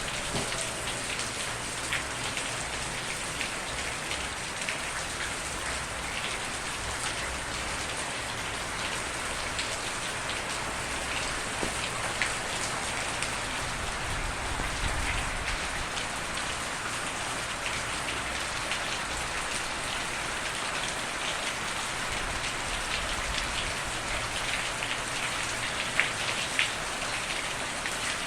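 Steady rain falling on a hard surface, a continuous hiss with many small drop impacts ticking through it and one sharper drop near the end.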